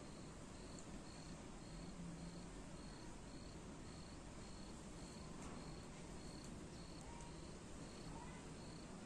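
A faint, high chirp from an insect, repeating evenly about one and a half times a second over low hiss.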